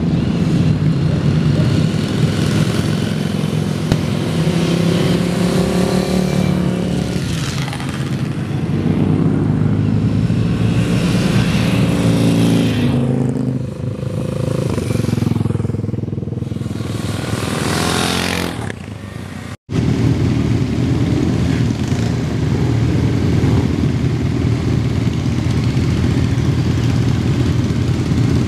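Motorcycle engines riding past, their pitch rising and falling as each bike goes by, with the loudest pass just before an abrupt cut about two-thirds of the way in. After the cut, several motorcycles roll slowly past together at low revs in a steady, dense rumble.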